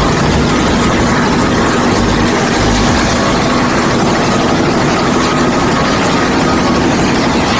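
Concrete mixer with a hopper running steadily, its engine making a constant noise.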